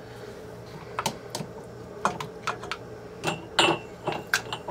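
A spoon tapping and scraping against a canning funnel and glass jars as caramelized onions are ladled into half-pint jars: a string of irregular light clicks and knocks, the last few with a brief ring.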